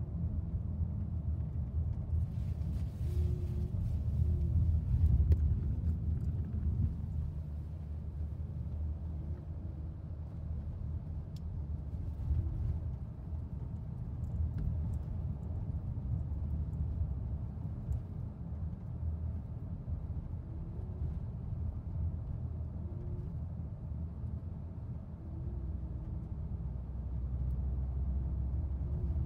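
Road noise inside a moving car's cabin: a steady low rumble of engine and tyres, swelling for a few seconds about five seconds in.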